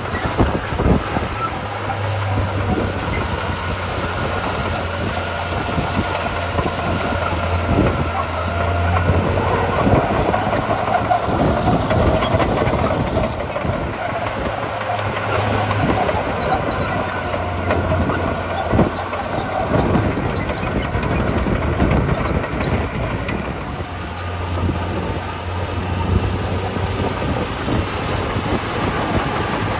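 Komatsu D41P crawler bulldozer working: its diesel engine runs steadily, swelling and easing every few seconds under load, over the clanking of its steel tracks.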